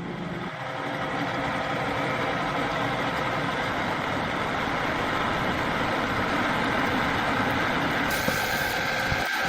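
A machine running steadily, its noise coming up to full level over the first second and then holding, with a faint steady tone in it.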